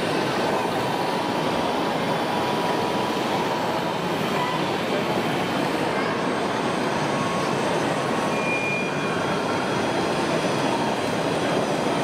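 Radio-controlled Liebherr 742 model bulldozer's drive and tracks grinding steadily as it pushes a blade-load of sand, over the constant din of a busy exhibition hall.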